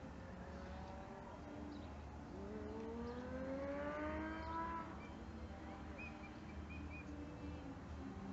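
An engine rising steadily in pitch, as of a vehicle accelerating, over steady outdoor background noise, with a few short high chirps about six seconds in.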